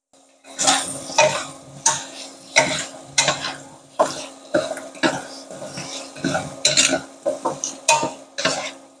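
Wooden spatula stir-frying carrot pieces in a non-stick frying pan: repeated scraping and clattering strokes about twice a second, starting about half a second in.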